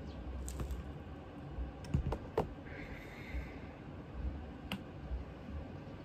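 Scattered light clicks and knocks from a shotgun and small bluing tools being handled on a work table, most of them bunched around two seconds in, over a low steady hum.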